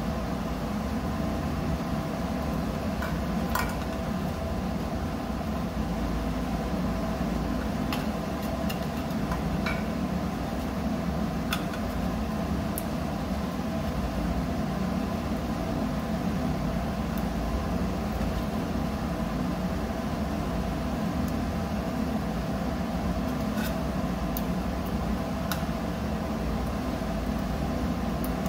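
Steady low machinery hum, with scattered light clicks and taps of a screwdriver and wires being worked in a plastic junction box.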